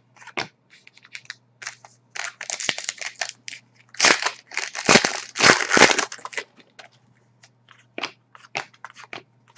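Trading cards being slid and flicked one by one, with loud crinkling from about two to six seconds in as a foil trading card pack wrapper is torn open and crumpled.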